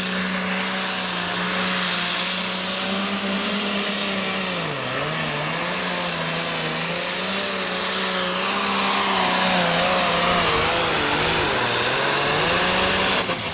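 Turbocharged diesel engine of a Ford pulling tractor at full throttle under the load of a pulling sled, held at high revs with a turbo whine above it. The revs sag briefly about five seconds in and again near eleven seconds, and the sound grows louder toward the end.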